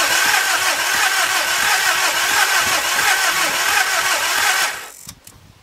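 Volkswagen Jetta's 1.9 TDI diesel engine being cranked by its starter motor with an even, rapid pulsing but never catching, until the cranking stops abruptly near the end. The cranking sounds a little weak, pointing to a tired battery. The engine is a diesel that turns over but won't start, which the owners put down to low compression.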